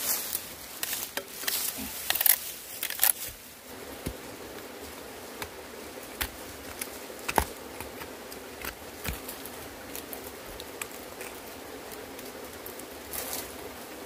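Scrapes and knocks of hand digging on a rocky slope: a short-handled hoe biting into soil and stones, with cement blocks being handled. The knocks are dense in the first few seconds, then come singly with a louder knock about seven seconds in.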